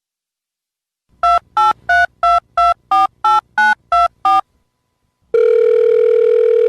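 Telephone keypad dial tones: ten short two-note beeps about three a second, like a ten-digit number being dialled. After a second's pause a long steady ringing tone on the line begins near the end.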